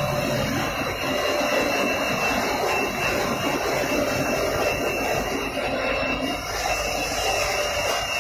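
Steady, even machine noise of a running PVC cling film production line, with a faint high whine in it.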